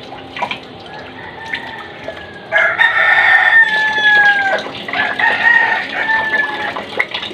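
A rooster crowing about two and a half seconds in: a long, drawn-out call that dips in pitch at its end, followed after a brief break by a second, shorter phrase. Faint running tap water sits underneath.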